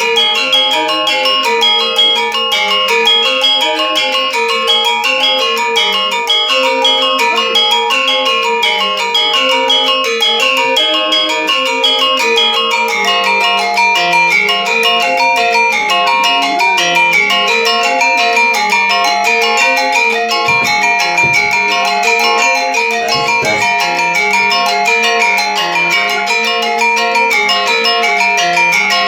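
Balinese gamelan music played on bronze metallophones: fast interlocking mallet strokes over ringing, sustained notes and a moving lower melody, performed in the Buleleng style.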